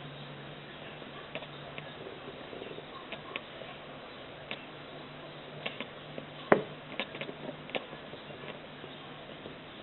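A cat's soft jaw clicks and ticks while chattering at birds, scattered and irregular, with one sharper click about six and a half seconds in, over a low steady hum.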